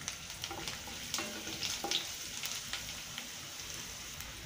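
Garlic cloves frying in hot oil with cumin seeds, black peppercorns and fennel seeds in a nonstick kadai: a steady sizzle with scattered small crackles and pops, stirred with a wooden spatula.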